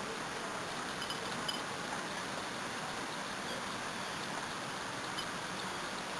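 Steady hiss of falling water from a shower, with a few faint, short high-pitched chirps over it.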